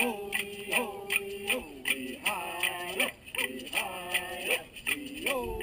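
A man singing a traditional Chumash song in swooping, sliding phrases over a steady beat of sharp clicks.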